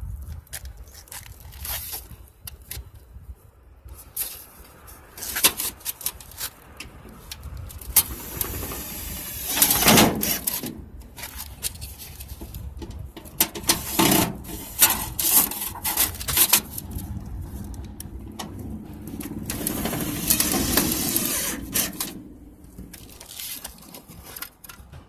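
Pieces of thin sheet-metal step flashing being handled and worked against a metal gutter: irregular clicks, clanks and scrapes, with a couple of longer scraping stretches.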